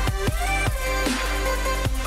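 Electronic background music with a steady beat of about two to three strokes a second under held synth notes and a melody.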